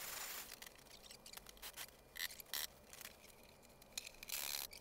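Quiet workshop handling noises from fitting a lock on a wooden trunk: light scrapes, rubs and small clicks, with a short hiss-like burst at the start and another near the end.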